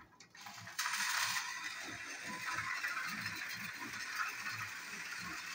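Two battery-powered toy trains, Thomas TrackMaster and Tomy/Plarail type, running on plastic track: a steady gear whir with a run of small clicks, starting abruptly about a second in.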